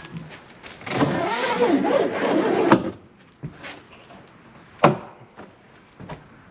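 A board being pried off with a pry bar: wood and nails creaking and squealing for about two seconds, then a single sharp knock a couple of seconds later.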